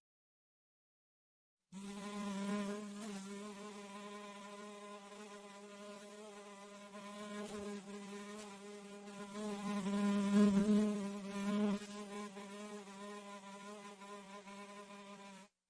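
House fly buzzing in flight: a steady, slightly wavering hum with many overtones. It starts after a short silence, swells loudest about two-thirds of the way through, and cuts off abruptly near the end.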